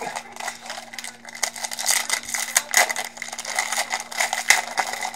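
Foil trading-card pack wrapper crinkling and crackling as it is torn and handled, in quick irregular crackles.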